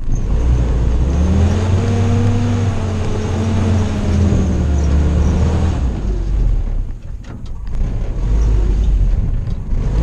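Willys CJ-2A Jeep's four-cylinder Go-Devil flathead engine pulling under load as it climbs a steep dirt mound. The engine note rises and then eases off over the first few seconds, and the sound drops briefly about seven seconds in before picking up again.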